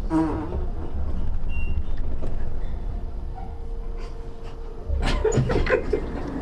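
Low steady rumble of an elevator car in motion. A brief wavering, buzzing sound comes right at the start, and a short louder burst comes about five seconds in.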